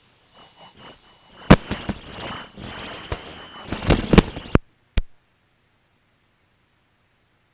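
Microphone handling noise: a lectern microphone being knocked and rubbed, a run of sharp thumps and rustling with a faint high whine under it, then a click about five seconds in after which the sound goes dead.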